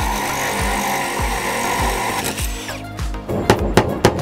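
Cordless drill boring a hole through a flat roof tile, a steady grinding whine that stops after about two seconds, over background music with a steady beat. A quick run of sharp knocks follows near the end.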